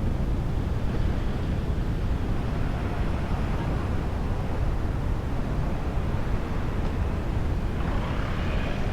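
Steady rushing noise, low and dense with no pitch or rhythm, and a brief brighter hiss with faint thin tones near the end.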